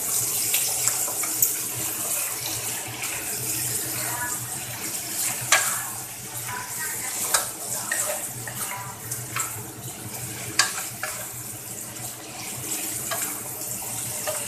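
Hot oil sizzling in a frying pan as food is stirred with a wooden spatula, with a few sharp knocks of the spatula against the pan.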